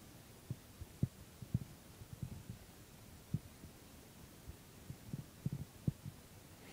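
Faint, irregular low thumps and bumps, about a dozen, as a golden retriever squirms against a padded couch while being scratched.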